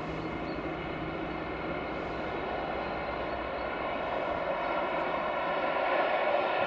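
Colas Rail diesel locomotive hauling a loaded timber train, its engine a steady drone that grows louder as the train approaches, with a rougher rumble of wheels on rail building in the second half.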